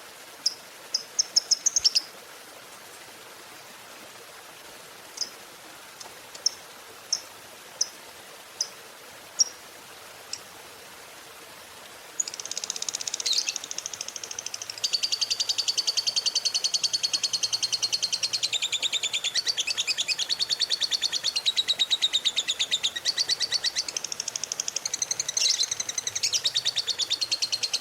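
Lovebird calls: a few sharp high chirps that quicken near the start, then single chirps about a second apart, then from about halfway a long unbroken rapid chattering trill, the lovebird's 'ngekek'.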